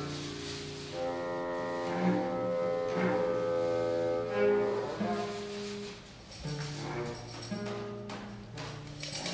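Free-improvised ensemble music: a cello bowing long held notes under other sustained tones that change every second or two, with a few sharp clicks and knocks from objects being handled, mostly near the end.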